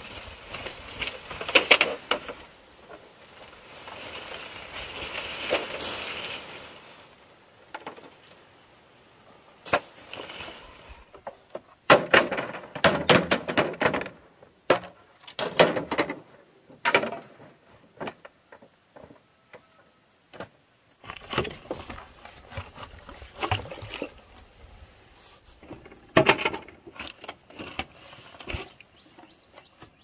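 Bamboo poles being handled, with hollow knocks and clattering strikes in clusters, after a stretch of rustling in the first few seconds.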